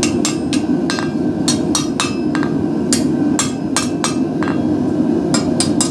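Hand hammer striking hot steel on an anvil in quick runs of light blows, about four a second with short pauses, straightening the forged bar. A steady low hum runs underneath.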